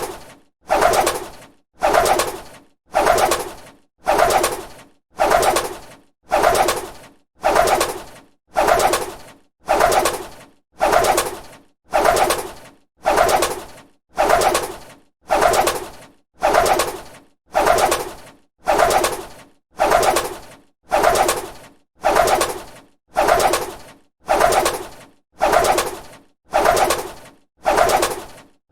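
A bird's wings flapping, repeated in even flurries about once a second, each starting sharply and dying away.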